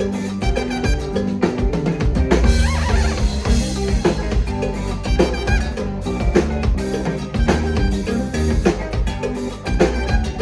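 A live band playing upbeat Latin pop, with a drum kit keeping a steady beat over bass, guitar and percussion.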